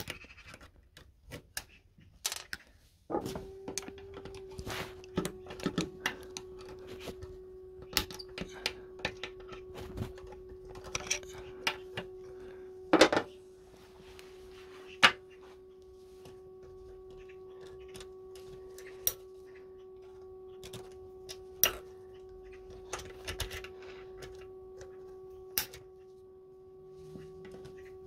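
Scattered metal clicks and taps of pliers and valve parts as the valves and valve springs are refitted in a side-valve lawnmower engine. A steady humming tone sets in about three seconds in and holds on under the clicks.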